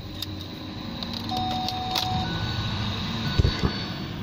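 Hyundai i30 cabin as the push-button ignition is switched on without starting the engine: steady electronic beep tones from the dashboard, a click about two seconds in, and a couple of low thumps near the end.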